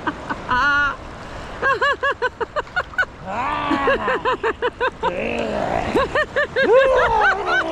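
People laughing and shrieking in the sea, in quick runs of high-pitched "ha-ha" bursts about five a second, with long falling squeals in between.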